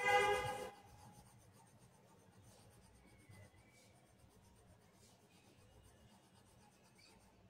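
Blue colored pencil shading on paper, a faint steady scratching. At the very start a brief pitched sound, like a voice or an animal call, lasts under a second and is the loudest thing heard.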